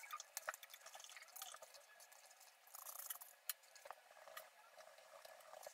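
Near silence: faint room tone with light, irregular clicks of typing on a tablet keyboard.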